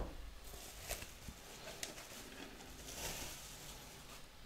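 Faint rustling and crinkling of a plastic bubble-wrap bag as a computer power supply is pulled out of it, with a few light clicks and a louder rustle about three seconds in.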